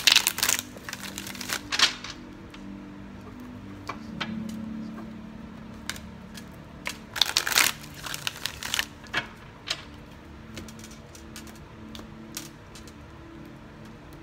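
A Rider-Waite tarot deck shuffled by hand: crackling bursts of cards riffling and snapping together near the start, about two seconds in, and again around seven to eight seconds in, with scattered single card clicks and taps between.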